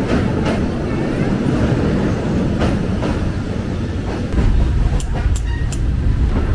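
Passenger train running on the rails: a steady low rumble with a few sharp clicks, the rumble growing louder about four seconds in.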